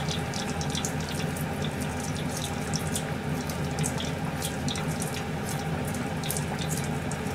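Kitchen tap running steadily into a sink, with light clicks and taps scattered through it and a low steady hum underneath.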